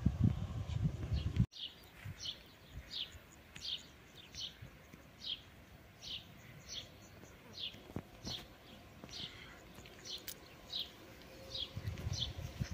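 A bird calling with short, falling chirps, about two a second. A low rumble in the first second and a half cuts off abruptly, and returns faintly near the end.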